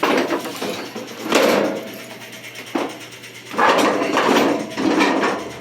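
A riding lawn mower's cover being worked back into place after a battery install: irregular clattering and scraping knocks in several bursts, with a sharp click near the middle.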